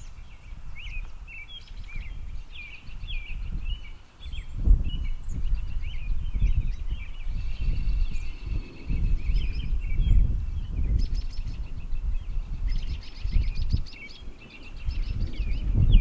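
Several songbirds chirping and trilling, over irregular low gusts of wind buffeting the microphone.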